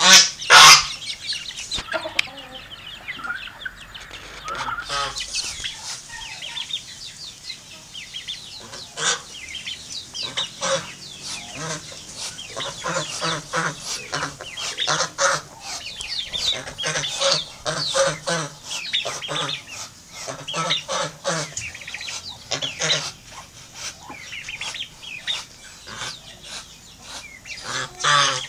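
Farmyard poultry clucking: many short calls repeating throughout, with one loud burst right at the start.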